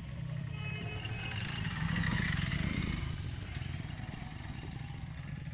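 Steady low engine rumble from a running vehicle, swelling briefly about two seconds in.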